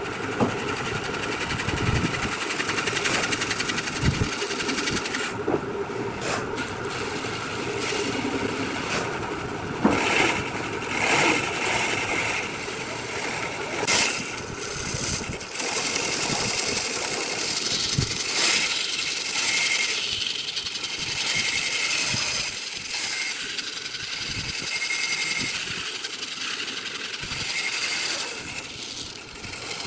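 Woodworking power machinery running and cutting wood, a steady mechanical noise broken by scattered knocks and a few brief changes in the cut.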